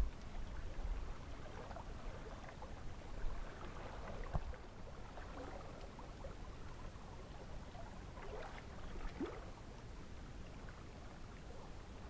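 Small creek flowing, faint and steady, under a low rumble, with a soft click about four seconds in.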